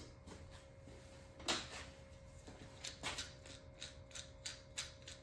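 A clamp being put on and tightened: two knocks, then a run of small quick clicks, all faint over a steady low hum.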